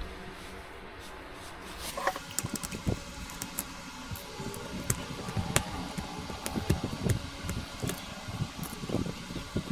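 Irregular small clicks and knocks of a mechanical keyboard being handled and taken apart by hand, over a steady background hum.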